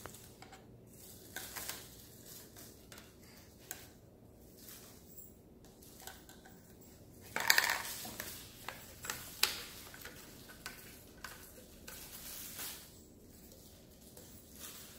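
Plastic center-outlet sink drain parts (tubular pipe sections, slip nuts and washers) being handled and fitted together: scattered light clicks and clatters of plastic on plastic and on the tile floor, with a louder cluster of knocks about halfway through.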